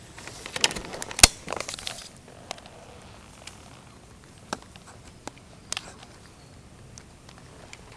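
Handling noise from a camera being moved in a plastic phone-holder mount: a burst of rattling clicks and knocks about a second in with one sharp loud click, then a few single clicks spaced out. No engine is running.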